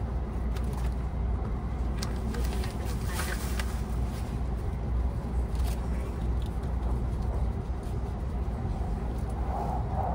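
Cabin of the Sunrise Seto sleeper train: a steady low rumble of the train running, with a few light clicks and a brief rustle about three seconds in.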